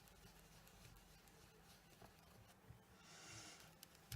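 Near silence with faint rubbing of an ink blending brush on cardstock, a soft swish about three seconds in, and a few light ticks.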